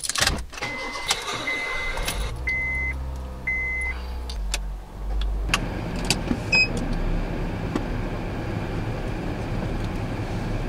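Car engine started with the ignition key and then running at idle, heard from inside the cabin, with a few short electronic dashboard beeps in the first few seconds. From about five seconds in a steady even rush of engine and ventilation noise fills the cabin, with a few sharp clicks.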